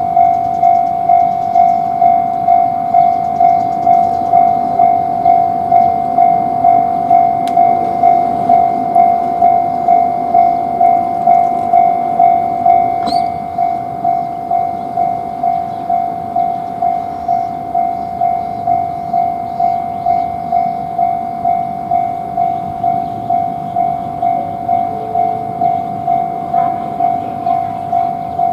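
Japanese railway level-crossing warning bell ringing, a steady electronic "kan-kan" tone pulsing about three times every two seconds. A train runs past under it in the first half, its rumble easing about halfway through.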